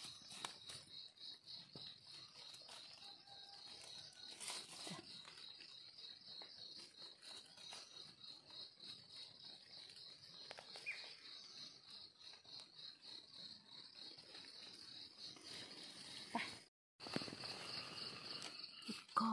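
A chorus of insects keeps up a steady, fast-pulsing high trill, dropping out for a moment near the end. Over it come faint rustles and scrapes of dry leaves and soil as a knife digs up mushrooms from the forest floor.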